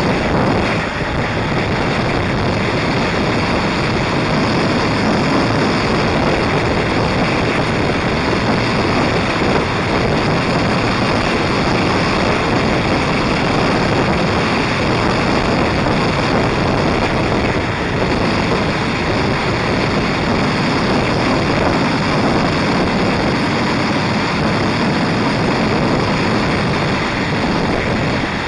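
Steady wind rushing over the microphone of a motorcycle cruising at speed, with the motorcycle's engine and road noise mixed in beneath it.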